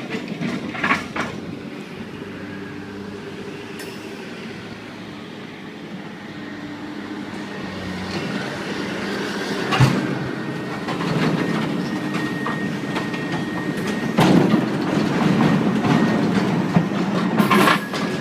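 Train running on the tracks. The rumble grows slowly louder, with a few sharp knocks along the way.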